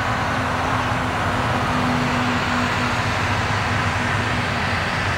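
Airbus A320 airliner on final approach, its jet engines a steady distant roar with a humming tone that fades out near the end.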